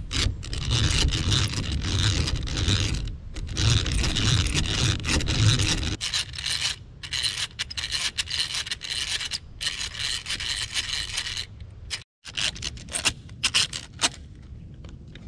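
A drill bit grinding into a wooden stick over a steady low drone for about six seconds. Then repeated short scraping strokes of tools on wood, ending with a hand-cranked drill boring into a log.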